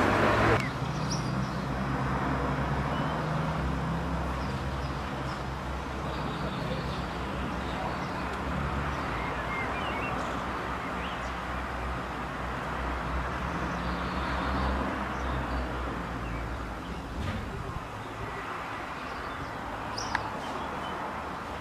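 A car engine running steadily close by over a haze of road traffic noise. The low engine hum drops away about three quarters of the way through, leaving the traffic noise.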